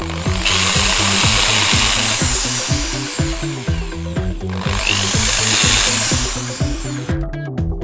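Handheld electric drill run twice, about two seconds each, its high whine rising as it spins up, working into the PVC tube through the rim of the subwoofer's frame. Background music with a steady beat plays under it.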